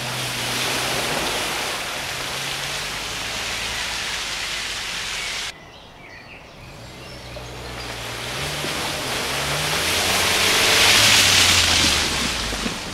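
Suzuki SX4 1.6 VVT's four-cylinder petrol engine pulling under load while its tyres churn and splash through wet mud. About five and a half seconds in the sound cuts off abruptly; the car then starts a second run through the mud, its engine revving up in steps and the splashing swelling as it comes close, loudest about a second before the end.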